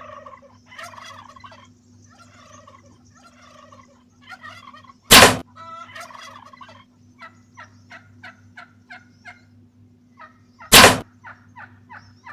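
Wild turkeys calling: warbling yelps, then runs of quick clucks at about five a second, broken twice by a very loud, short burst.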